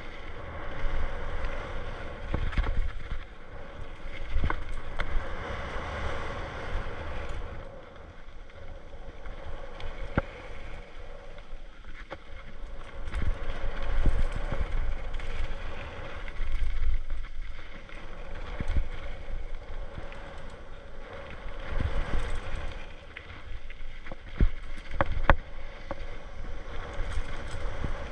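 Mountain bike rolling down a rough dirt trail: tyre noise and rattles and knocks from the bike over bumps, with wind buffeting the microphone.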